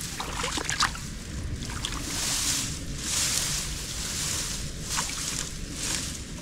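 Water sloshing and splashing in irregular surges as a fish trap is handled in it, with a few small knocks in the first second.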